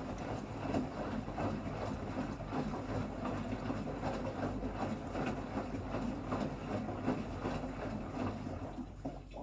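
Beko bPRO500 washing machine turning its drum during a calibration cycle: water sloshing and swishing in a steady rhythm over the hum of the motor, stopping suddenly at the very end.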